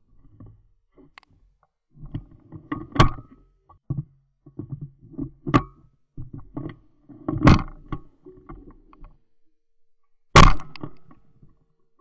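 Four shotgun shots, spaced about two to three seconds apart, the one near the end the loudest. Low rustling noise runs between the first three.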